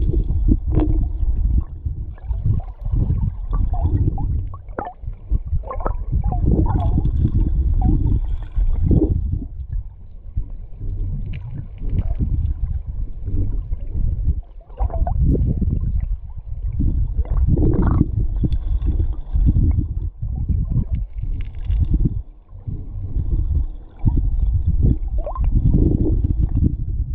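Muffled, rumbling rush of river current heard from a camera underwater, swelling and dipping irregularly.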